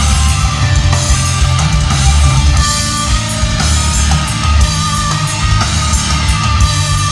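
A live heavy rock band playing loudly: distorted electric guitar, bass and drum kit, heard from the audience.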